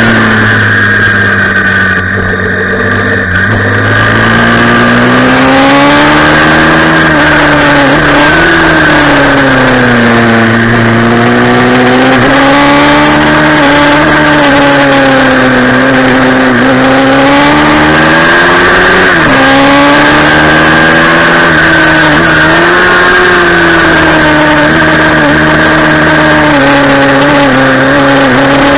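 Pit bike's single-cylinder engine heard from onboard at high revs, its pitch rising and falling every few seconds as the rider eases off into corners and opens the throttle out of them. Wind rushes past the microphone. The revs drop briefly about two seconds in.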